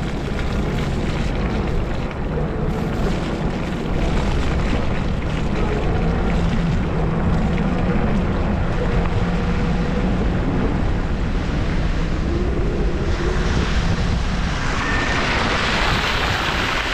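Wind buffeting the microphone and road noise from an e-bike riding through snow, with a faint wavering hum under the rumble. A brighter hiss swells up about three quarters of the way through.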